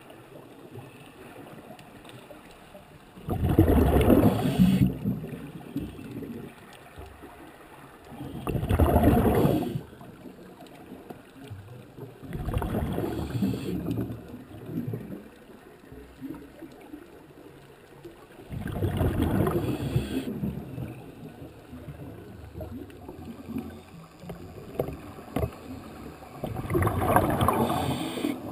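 Scuba diver's exhaled bubbles rushing out of the regulator, heard underwater: five bursts, each a second or two long, about every five seconds, with a faint steady hiss between them.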